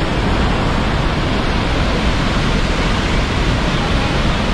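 Steady, loud rushing of a large waterfall close by, Niagara's Bridal Veil Falls, an unbroken noise with no let-up.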